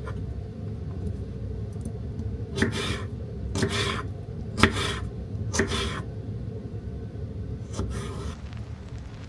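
Kitchen knife slicing through a cucumber onto a wooden cutting board: five crisp cuts, four about a second apart and a last one a couple of seconds later, over a steady low background hum.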